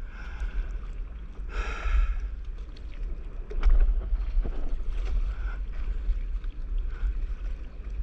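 Wind buffeting the microphone with seawater sloshing and splashing around a stand-up paddleboard on choppy sea, with a few louder splashes around the middle.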